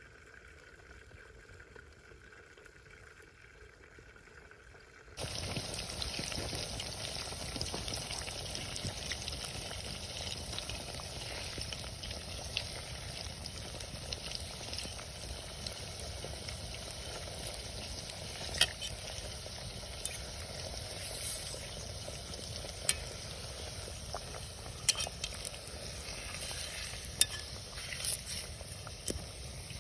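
Food frying in hot oil in a cast-iron kazan over a campfire, a steady sizzle that starts abruptly about five seconds in, with a few sharp clicks along the way.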